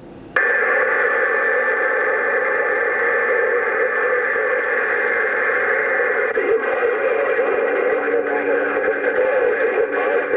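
Radio receiver static from an open channel on an HR-2510 ten-meter transceiver: a steady hiss with a thin whistle-like tone running through it, coming on suddenly just under half a second in.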